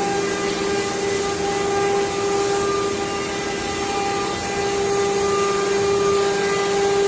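CNC router spindle running and cutting, with a steady high tone and its overtones over a constant hiss.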